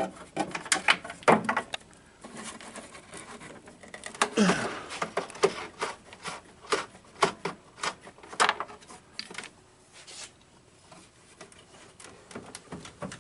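Scattered clicks and short rubbing noises from hands turning off the nylon nuts that hold a Mercedes-Benz W123 headlight door and handling the plastic door.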